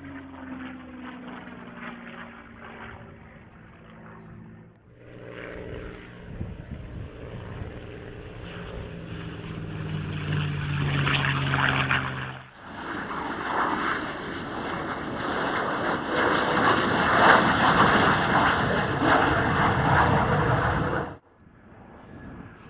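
Aircraft engines across several edited shots. A P-51 Mustang's V-12 piston engine grows steadily louder as it makes a low pass, cut off suddenly about twelve seconds in by a louder, rushing aircraft pass that stops abruptly near the end, where a quieter propeller aircraft, a C-130J Hercules on approach, is heard.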